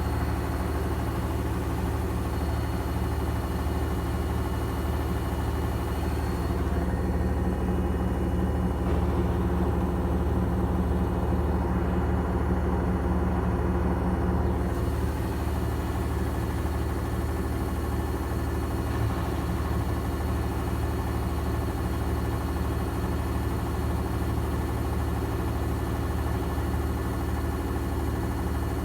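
Gorenje washing machine in its final spin, the drum turning at a steady speed with a constant hum.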